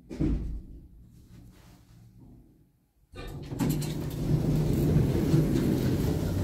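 Stannah passenger lift with a thump, then after a brief near-silence a loud, steady rumble with a low hum from about three seconds in as the car runs. The rough running is a sign, the owner reckons, that it just needs some oiling.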